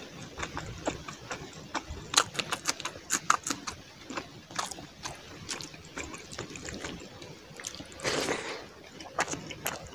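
Close-up wet eating sounds: fingers squishing through curry and rice, then chewing and lip smacks as many short sharp clicks. About eight seconds in, a brief louder rush of noise as a handful of food is pushed into the mouth.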